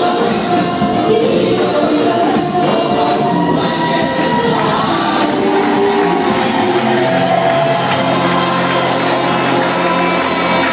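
Mixed church choir singing a gospel song over instrumental backing. About two-thirds of the way through, a steady low bass note comes in and holds under the voices.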